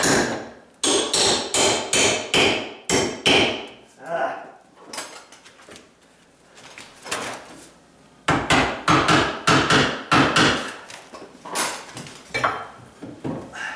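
A hammer striking a steel flat bar to drive it under plywood nailed to cabinet tops. Two runs of quick, ringing blows, about three a second, with a pause of several seconds between them and a few lighter taps after the second run.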